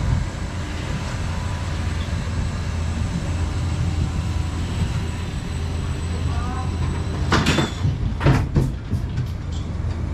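Spinning roller coaster car running on its steel track with a steady low rumble. About seven seconds in comes a cluster of short, sharp noises, the first the strongest.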